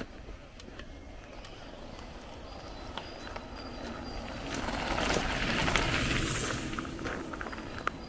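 Two mountain bikes ride past on a gravel path, their tyres crunching louder as they approach, loudest about five to six and a half seconds in, then fading. Footsteps crunch on the gravel underneath.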